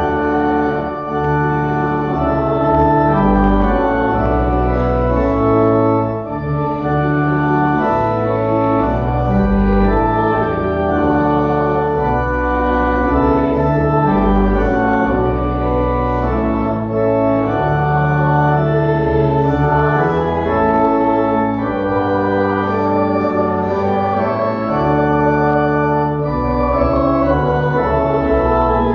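Church organ playing a hymn in full held chords over a sustained pedal bass, the chords changing every second or two.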